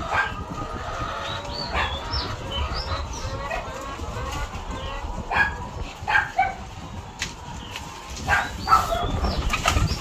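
Caged brown laying hens clucking and squawking in short, scattered calls, with sharp clicks from the plastic egg trays being handled.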